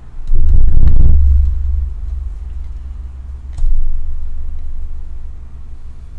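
Two heavy low thumps, each fading into a low rumble. The first, about a third of a second in, is the louder and carries a few light clicks; the second comes about three and a half seconds in.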